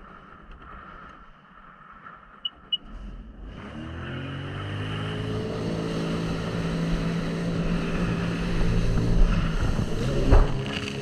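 Two short high beeps from a Sea-Doo Spark jet ski, then its three-cylinder engine comes up about three and a half seconds in and runs, its pitch rising as it revs. There is a sharp thud near the end.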